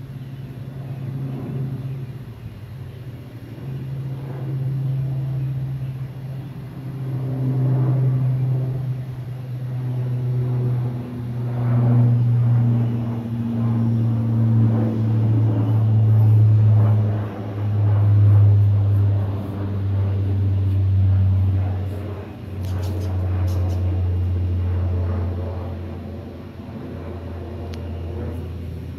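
Lockheed EC-130J's four turboprop engines droning overhead: a low propeller hum that swells and ebbs, is loudest midway, and slowly falls in pitch as the aircraft passes.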